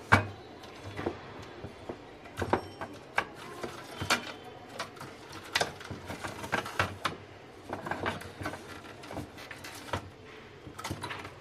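Irregular clicks and knocks of hard plastic as a Daikin split AC indoor unit's circuit board is pried and unclipped from its black plastic housing and lifted out. The sharpest knock comes right at the start.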